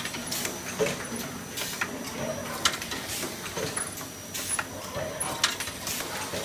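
Automatic waffle cone baking machine running: irregular metallic clicks and clanks from its mechanism, with a few short squeaks over a steady hiss.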